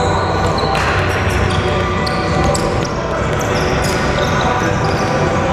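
Basketball bouncing on a hardwood gym floor during play, with sharp knocks and short high shoe squeaks, echoing in a large gym.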